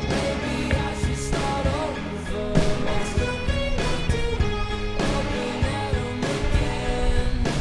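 Rock music with guitar, drums and singing.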